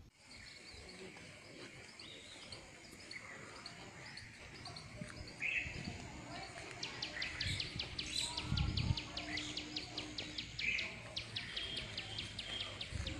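Outdoor ambience with birds calling now and then. About halfway through, a rapid run of high, dry chirps or ticks starts, roughly six a second, and keeps on.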